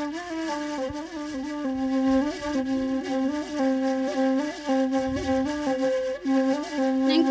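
Saluang, the Minangkabau end-blown bamboo flute, playing a melodic interlude: a held low note ornamented with quick grace notes flicking up and back.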